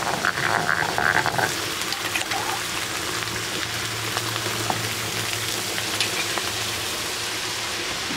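Catfish pieces sizzling in a hot wok, a steady frying hiss, with a stone pestle scraping chilli paste around a granite mortar in the first second and a half and a few light clicks of utensils.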